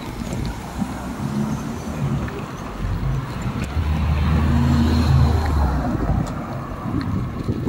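Wind rumbling on the microphone of a moving e-bike in a sandstorm, with a car's engine and tyres swelling louder as it passes close by from about halfway through, then fading.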